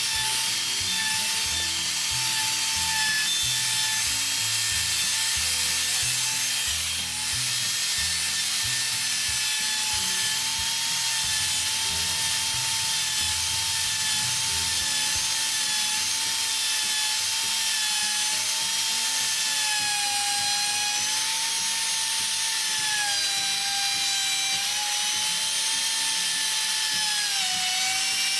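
Bosch handheld router running at full speed, its bearing-guided bit cutting a rounded profile along the edge of a board. It gives a steady high whine that dips slightly in pitch now and then as the bit takes the cut.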